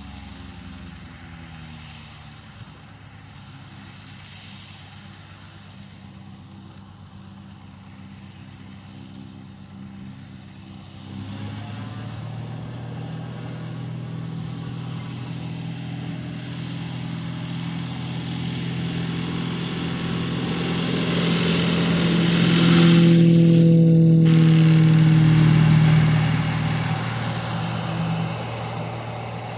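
Single-engine propeller tug plane's piston engine, ticking over and then opened up to full power about eleven seconds in for an aerotow takeoff run. It grows steadily louder to a peak as the plane passes close by, its pitch dropping, then fades as it climbs away.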